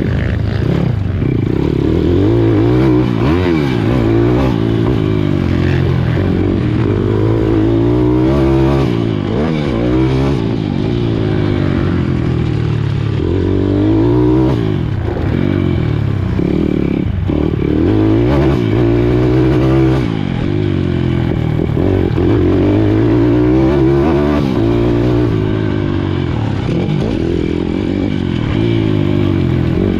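Pit bike's single-cylinder engine revving hard and dropping back over and over as it is raced on a dirt motocross track, its pitch climbing on each straight and falling off into the corners, heard up close from the bike itself along with rattling from the chassis.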